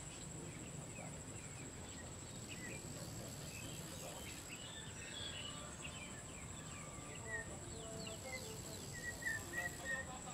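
Small birds chirping and calling over and over, with short falling notes that grow busier and louder in the second half, over a steady high-pitched insect drone.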